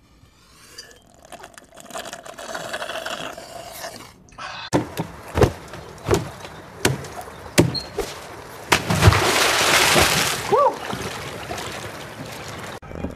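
Several sharp knocks, then a big splash of water about nine seconds in as a person goes into a swimming pool.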